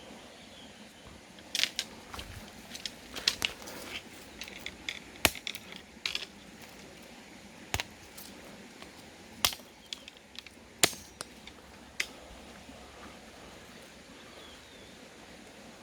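A series of sharp, irregular clicks and knocks, some in quick clusters, over a faint steady outdoor background with a few faint bird chirps.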